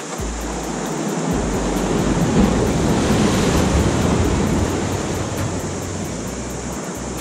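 Sea waves surging and washing over rocks close by, swelling to a peak a couple of seconds in and then easing off.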